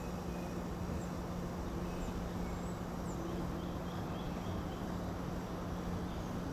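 Faint birds chirping, a few short high notes and a quick run of repeated chirps in the middle, over a steady background rush with a constant low hum.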